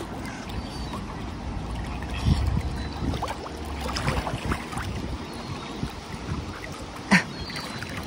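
Wind buffeting the microphone over water lapping and splashing against shore rocks as mute swans and mallards jostle close in. A short sharp sound near the end.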